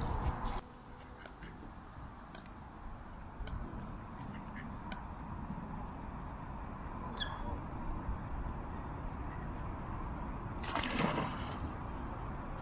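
Waterbirds on a lake (coots, mallards and Canada geese) giving short sharp calls about once a second, then one longer call about seven seconds in, over steady wind on the microphone. A brief splash comes near the end as a coot dives.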